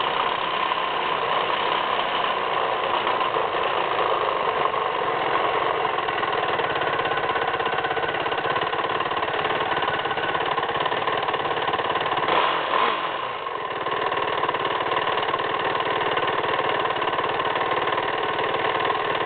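Yamaha YZ450F's 450cc four-stroke single-cylinder engine running steadily, heard close up from the front fender. There is a brief surge and then a dip in the sound about two-thirds of the way in.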